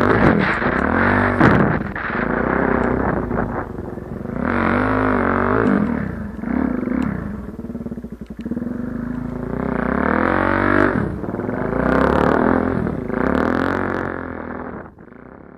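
Suzuki DR-Z400 dirt bike's single-cylinder four-stroke engine running under throttle, its pitch rising and falling several times as it revs up and eases off, then fading out near the end.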